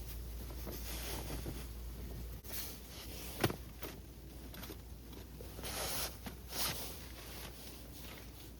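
Rustling handling sounds with a few brief swishes and one sharp click about three and a half seconds in.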